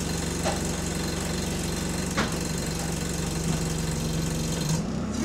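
Bus diesel engine idling steadily, heard from inside the saloon, with two light knocks; near the end the engine note rises as it takes up power.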